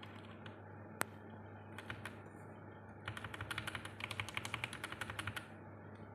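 Small plastic clicks from Outemu mechanical keyboard switches: a few single clicks, then a fast, dense run of clicking lasting about two seconds.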